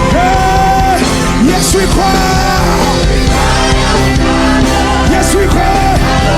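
Live worship music: a singer holds long notes with vibrato over a loud full band, with drums and cymbals.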